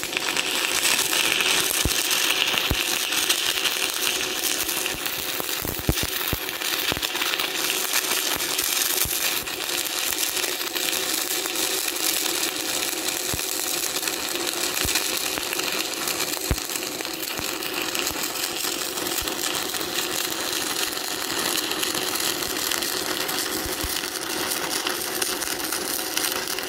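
Shielded metal arc (stick) welding with a 1/8-inch E6010 electrode on reverse polarity at 85 amps, running the root pass vertical-up. The arc gives a loud, steady crackle with scattered sharp pops.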